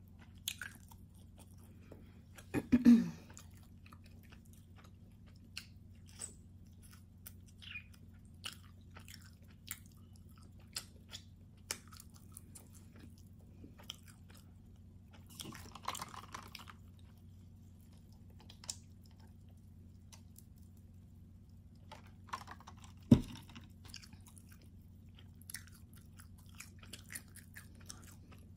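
Close-miked mouth sounds of someone eating a calzone: chewing with many small wet clicks and smacks. A louder burst comes a few seconds in, and a single sharp knock comes later on.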